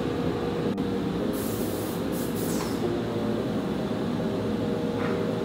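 SEMAC SM 1325R1B AL CNC nesting router running steadily while cutting a wooden panel, its spindle and dust extraction giving a constant mechanical drone with a steady hum. A hiss rises over it for about a second and a half, starting just over a second in.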